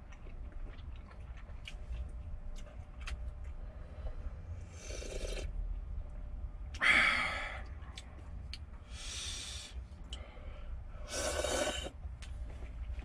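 A person slurping ramen noodles: four slurps of about a second each, the second, about seven seconds in, the loudest. Light clicks of chopsticks against a metal pot come in between.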